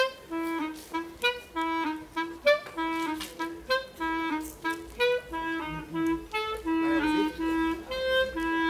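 Clarinet playing a quick, lively tune in short detached notes, returning again and again to the same low note.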